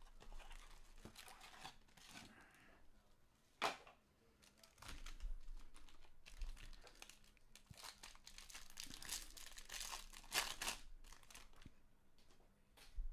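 Foil trading-card pack wrappers crinkling and being torn open, with two sharp snaps, about three and a half and ten seconds in, and a dense stretch of crackling near the end.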